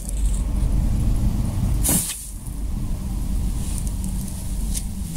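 A small pile of black powder on paper, lit with a fuse, flaring up in a short whoosh about two seconds in, followed by a hiss.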